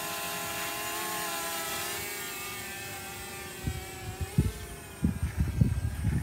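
A small quadcopter drone's propellers whine overhead, a steady hum of several tones that rises briefly in pitch about four seconds in and then fades as the drone flies off. Low irregular thumps and rumbles, like wind or handling on the microphone, come in over the last couple of seconds.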